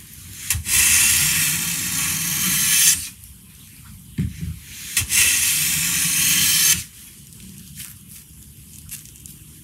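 Hand plane with a No. 5½ blade ground to a subtle curved edge taking two long strokes along a board, each a steady hiss of a full-width shaving peeling off. The first stroke starts about a second in and lasts about two seconds; the second starts about five seconds in, with a short knock between them.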